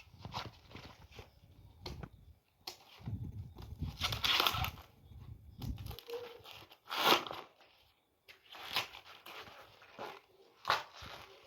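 Irregular tearing, crumpling and rustling from food being handled and prepared by hand, with a few sharper, louder knocks.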